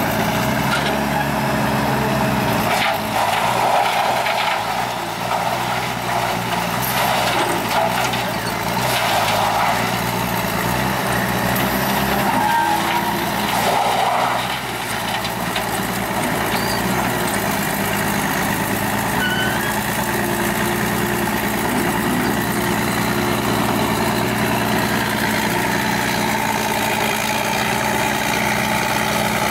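Heavy diesel machinery running steadily: an excavator working beside a wood grinder that is chewing up wood scraps, with a harsher grinding noise through the first half.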